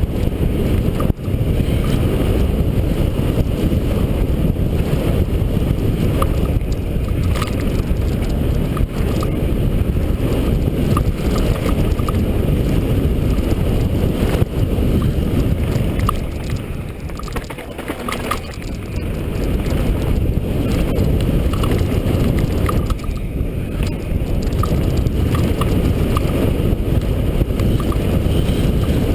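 A mountain bike descending a dirt trail, heard as a steady low rumble of wind buffeting the camera microphone, with scattered small clicks and rattles from the bike. The rumble eases for a moment just past the middle, then picks up again.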